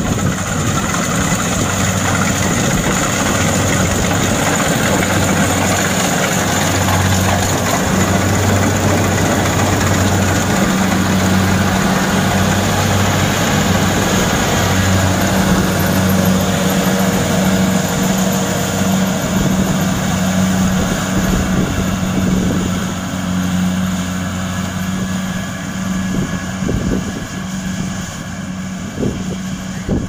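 Kubota DC-70 PLUS rice combine harvester running while it harvests: a steady diesel engine drone under the rush and clatter of its cutting and threshing machinery. The sound grows somewhat quieter in the last several seconds as the harvester moves off.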